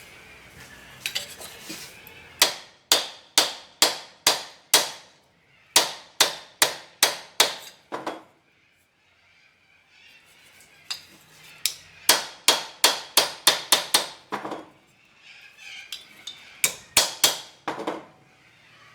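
Hammer striking car body sheet metal, about two blows a second in runs of four to ten with short pauses between, each blow ringing briefly: the metal is being beaten into shape for a rust repair.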